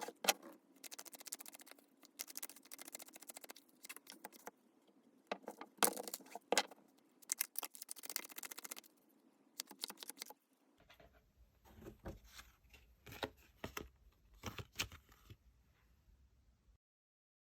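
Tarot cards being shuffled and handled: quick rustling and clicking, changing about ten seconds in to sparser clicks over a low rumble, and cutting off near the end.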